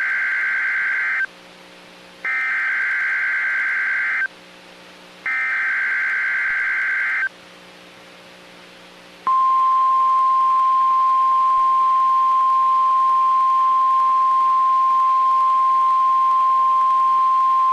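NOAA Weather Radio Emergency Alert System SAME header: three bursts of warbling data tones, each about two seconds long and a second apart, then the steady 1050 Hz warning alarm tone starting about nine seconds in. It is the alert signal that sets off weather radio receivers, here ahead of a severe thunderstorm watch.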